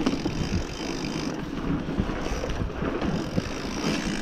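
Mountain bike riding along a bumpy dirt trail: tyres rolling and the bike rattling over bumps, with wind buffeting the microphone.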